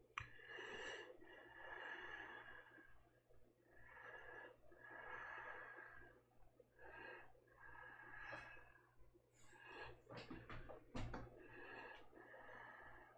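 Faint, slow breathing of a person close to the microphone, in soft swells every second or two. A short run of clicks comes about ten seconds in.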